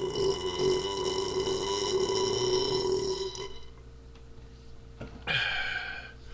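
A man's long, drawn-out burp that stops about three and a half seconds in, followed by a shorter, brighter burst of voice about five seconds in.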